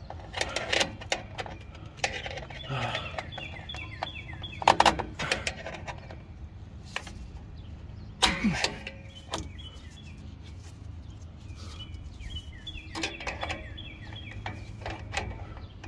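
Irregular metal clicks and clinks of pliers and drum-brake hardware: the adjuster spring is being hooked in and the star-wheel adjuster fitted between the shoes. Birds chirp now and then in the background.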